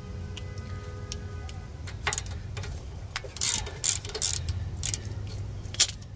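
Socket ratchet clicking and knocking as a 10 mm rear brake caliper bolt is worked loose: a string of irregular metallic clicks, busiest about halfway through, with a single sharp knock near the end.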